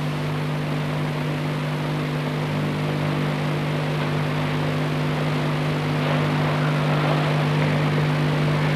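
A steady low hum with a broad hiss over it, slowly growing a little louder.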